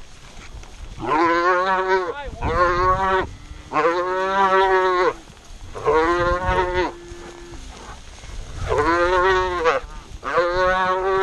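A roped calf bawling: six loud, drawn-out calls of about a second each, with a longer pause between the fourth and fifth.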